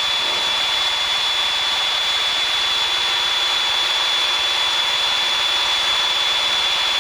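Steady cockpit drone of a Piper PA-28-161's engine and airflow in level cruise flight, with a constant high-pitched whine on top.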